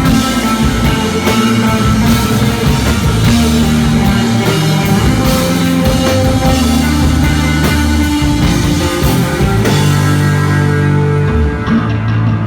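Live instrumental rock trio of electric guitar, bass guitar and drums playing a spacey, droning desert rock piece. The cymbals drop out near the end, leaving guitar and bass.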